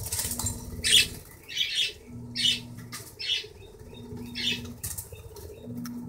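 A small pet parrot's wings flapping in about six short bursts as it flies about the room.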